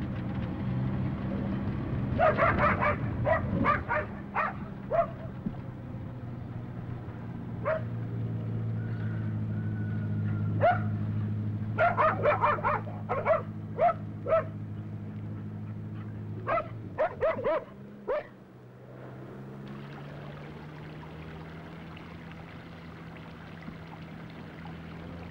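A dog barking in several quick runs of short barks over the steady low hum of a vehicle engine. The engine stops about three-quarters of the way through, leaving a steady splashing of water running into a stone fountain basin.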